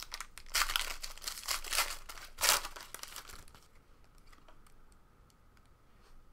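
Shiny foil trading-card pack wrapper crinkling and tearing as it is opened, in several bursts over the first three and a half seconds, loudest about two and a half seconds in. After that only faint ticks as the cards are handled.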